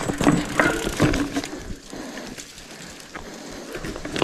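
Mountain bike riding down a dirt trail: tyre noise with irregular clatter of the chain and frame over bumps, louder in the first second and a half, then quieter.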